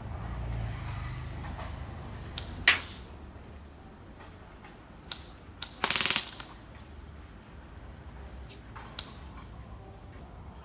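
Airsoft guns firing: one sharp single shot, a few fainter pops, and a short rapid burst of about half a second near the middle.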